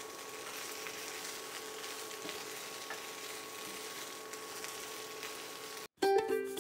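Chicken lollipops in a sticky sauce sizzling in a wok while a spatula stirs and tosses them, a steady sizzle. Near the end it cuts off, and plucked-string music starts.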